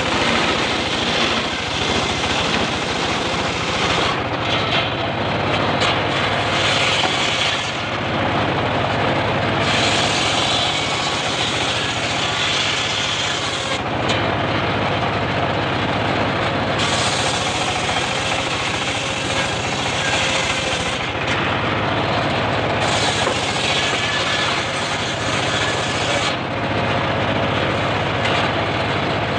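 Engine-driven homemade table circular saw ripping a mahogany log into boards: the engine runs steadily under a loud, continuous sawing noise. The high cutting noise eases off several times between passes, leaving the engine and the spinning blade.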